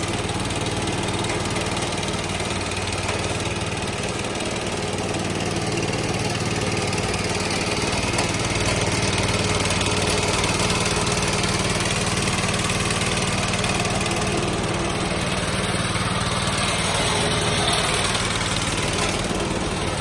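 Petrol engine of a remote-controlled tracked mower running steadily as the mower drives on its rubber tracks.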